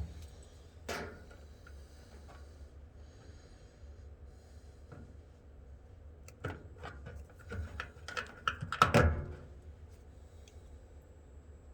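Hand tools and small parts being handled while wiring a switch: scattered light clicks and knocks, one about a second in and a busier run of taps near the end, over a low steady hum.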